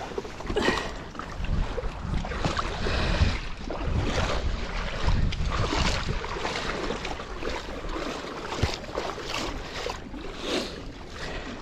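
Shallow water splashing and sloshing around a paddle board in irregular washes as the paddler gets off in the shallows, with wind rumbling on the microphone.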